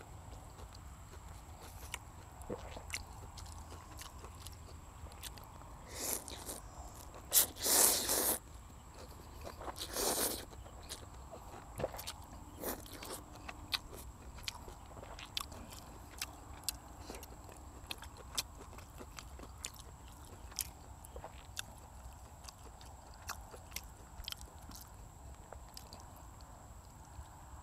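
Close-miked mukbang eating of egg noodles: wet chewing and mouth smacks as a run of small clicks, broken by loud slurps of noodles about six seconds in, a longer loudest one around eight, and another around ten.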